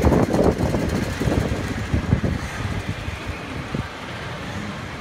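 A group of small street go-karts driving past in traffic, their engines buzzing. The sound is loudest at the start and fades over the first few seconds as the karts pull away, leaving a low street-traffic rumble.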